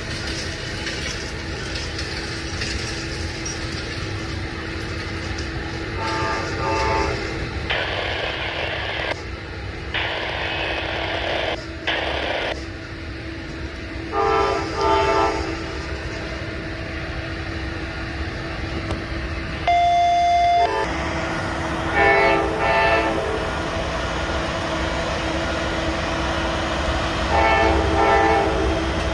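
Amtrak diesel locomotive's air horn sounding several chord blasts, spaced a few seconds apart, as the passenger train approaches. There are stretches of hiss about a third of the way in, over a steady low hum.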